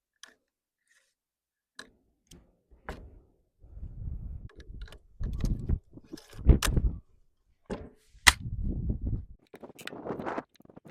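Sharp metallic clicks and clunks from handling an AR-15 rifle fitted with a .22LR conversion, with low rumbling handling noise in between. Two louder sharp snaps come about six and a half and eight seconds in.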